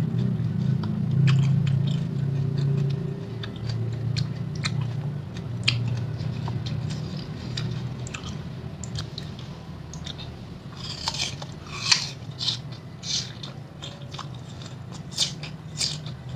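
Close-miked chewing of crisp fresh fruit from a spicy rujak buah, many short wet crunches and smacks, getting louder and crisper in the last five seconds. A low hum underneath fades out over the first ten seconds.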